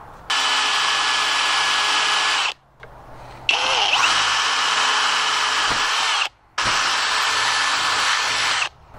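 Cordless drill boring a keyhole through an old oak door with a blunt 10 mm bit. It runs in three steady bursts of two to three seconds each, with short pauses about two and a half and six seconds in.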